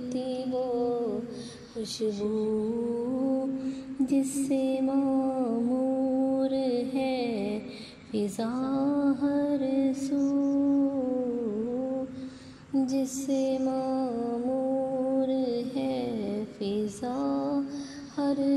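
A woman's voice singing a naat in long, drawn-out notes that glide and waver, with a few short breaks for breath.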